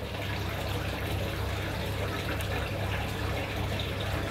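Steady rush of running water with a low, constant hum underneath.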